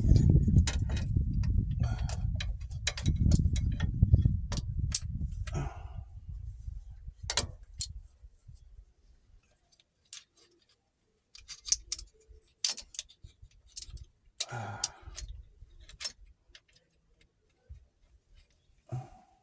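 Scattered metallic clicks and clinks as a pliers-type oil filter wrench is handled and fitted around an oil filter. A low rumble is loudest in the first few seconds and fades out, and there is a brief scrape about fifteen seconds in.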